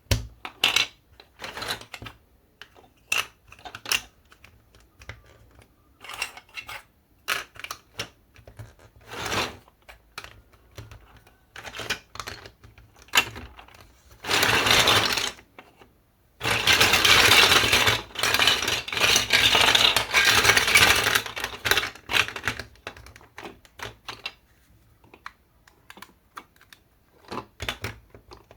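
Marble-run building pieces being handled and set in place: scattered clicks and clacks, with several seconds of continuous rattling just past the middle, then scattered clicks again.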